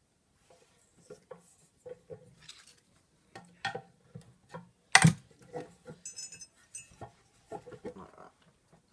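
Metal parts of a vacuum cleaner motor unit and hand tools clinking and knocking as a stuck part is worked at. The knocks are irregular, with one much louder knock about five seconds in and a brief high metallic ring soon after.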